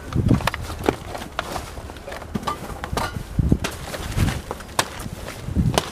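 Plastic bags and wrappers rustling and crinkling as hands rummage through a pile of garbage, with scattered sharp clicks and a few soft thumps.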